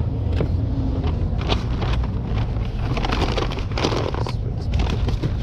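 Rustling and clicking as a food order with a drink is packed into a delivery bag, over a steady low rumble.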